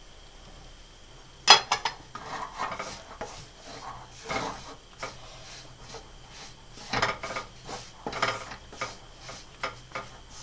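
Wooden spatula stirring and scraping ragi flour and ghee around a metal kadhai as the flour roasts, in irregular strokes. A sharp clatter against the pan comes about one and a half seconds in.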